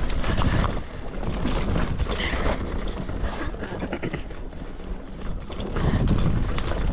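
Wind rushing over the camera microphone while riding a mountain bike, with many short knocks and rattles from the bike over the trail. The rush wavers in loudness, dropping about a second in and again midway, then swelling near the end.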